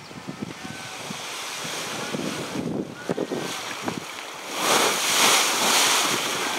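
Outdoor rushing noise: wind buffeting the microphone, swelling into a louder hiss about four and a half seconds in.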